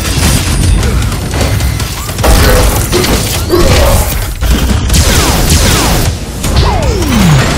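Dense action sound effects over music: heavy booms and crashing impacts, a few seconds apart, and a falling pitch sweep near the end.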